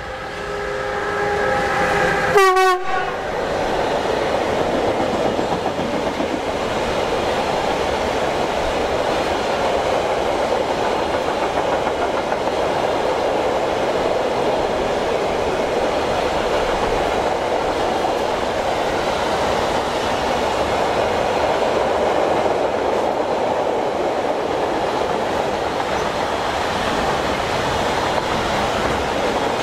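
ÖBB Siemens Vectron electric locomotive sounding its horn as it passes close by; the horn's pitch falls sharply as the locomotive goes past and it cuts off about two and a half seconds in. A long car-carrier freight train then rolls by with a steady, loud noise of wheels on rail.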